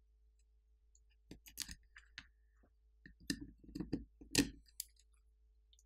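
A scattering of small, sharp clicks and taps from a pry tool working at a smartphone's flex-cable connectors as they are popped off the board. The clicks come in an irregular cluster from about a second in until near the end.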